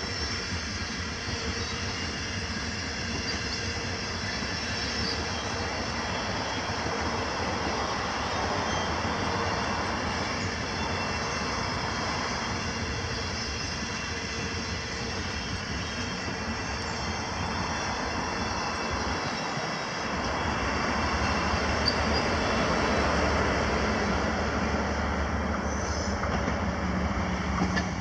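Stainless-steel passenger carriages rolling steadily past, the noise of their wheels running on the rails, growing louder about two-thirds of the way through.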